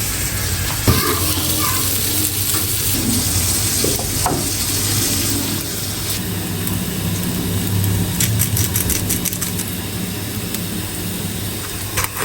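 Butter sizzling steadily in a hot frying pan that steak was just cooked in, with a few light clicks about two-thirds of the way through.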